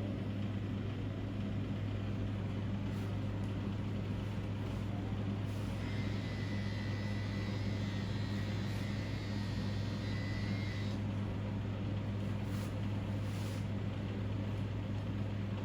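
Steady low mechanical hum at an even level, with a faint thin high tone in the middle for about five seconds.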